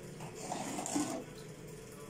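Salt brine sloshing and splashing as a gloved hand scoops green olives out of a stainless steel bowl and lifts them toward a glass jar; the splashing swells and is loudest about a second in.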